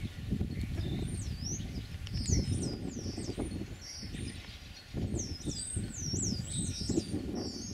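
Small songbird calling repeatedly outdoors: quick high whistled chirps that dip and rise in pitch, coming in clusters with a short lull about halfway through, over a steady low noise.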